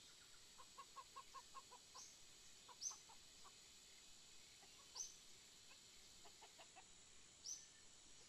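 Faint hens clucking in quick runs of short notes, with four or five brief high chirps that are the loudest sounds.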